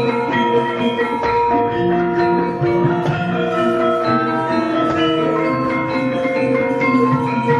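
Javanese gamelan orchestra playing, its struck bronze metallophone notes ringing on and overlapping at a steady level.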